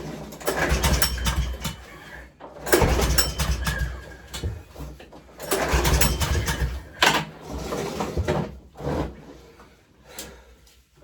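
Lawnmower's Briggs & Stratton 150cc OHV engine being pull-started on choke, about four pulls roughly three seconds apart, each a short rumble that dies away without the engine settling into a steady run.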